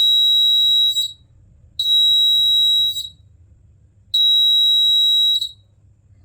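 Buzzer of a home-made IR-sensor fire alarm sounding a high, steady tone in long beeps of about a second each: one already sounding stops about a second in, then two more follow. The buzzer sounding is the sign that the IR sensor is detecting fire.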